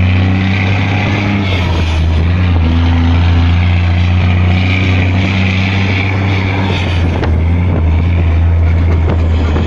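Big Cam Cummins inline-six diesel of a twin-stack Volvo truck pulling a heavy load at steady cruise, a loud, even low drone, heard from the trailer behind the cab with wind and road rush over it.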